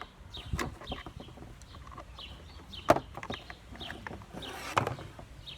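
Birds chirping: short, falling, high calls repeated about twice a second. A few sharp knocks break in, the loudest about three seconds in and again near the end.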